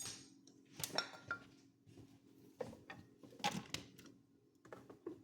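Kitchen clatter: a handful of separate knocks and clinks as dishes and utensils are handled, one about a second in ringing briefly like metal.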